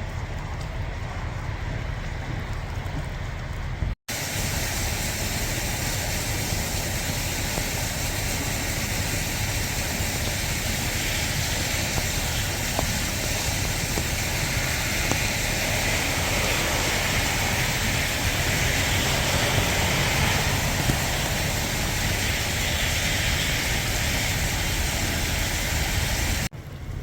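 Steady noise of heavy rain and wind. About four seconds in it cuts abruptly to a louder, brighter rain hiss, and near the end it cuts back to a deeper rumble.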